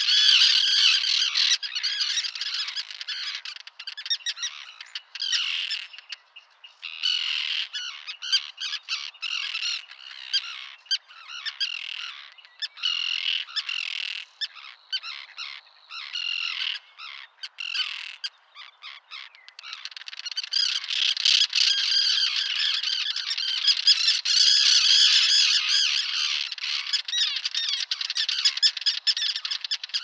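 Common tern colony calling: a dense chorus of harsh, overlapping calls that thins to separate calls with short gaps in the middle, then thickens again for the last third.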